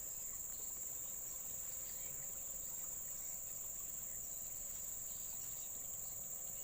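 Steady, unbroken high-pitched chorus of forest insects.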